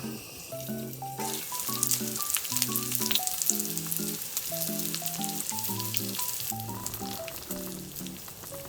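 Food sizzling and crackling in a hot pan, starting suddenly about a second in as it goes onto the heat, over soft background music.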